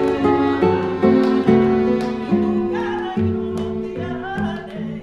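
Music led by guitar, with held notes sounding underneath and changing every second or so.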